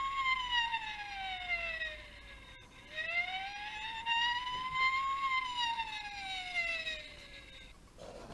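Toy fire engine's electronic siren wailing, the pitch slowly falling, rising and falling again in sweeps of about two and a half seconds. It stops just before the end.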